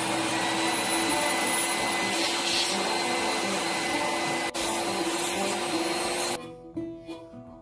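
Shop vacuum running steadily at full suction, its hose on the end of an electrical conduit to pull air, and the pull-line mouse with it, through the buried pipe. It stops abruptly about six seconds in, and harmonica music comes in.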